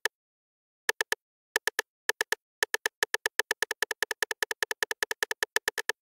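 Electronic background music: identical short synth blips, first in groups of three, then quickening into a fast even run that stops just before the end.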